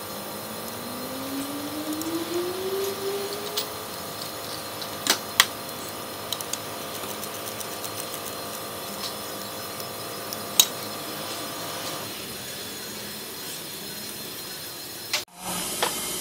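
A few sharp metal clinks of hand tools and engine parts as a mechanic works around the alternator in a car's engine bay, over a steady workshop hum. A low hum rises in pitch over the first few seconds. The background sound changes abruptly near the end.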